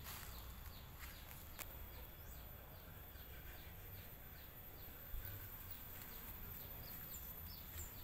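Small birds chirping: a steady run of short, quick, falling chirps, several a second, over a faint low rumble. A single soft knock about five seconds in.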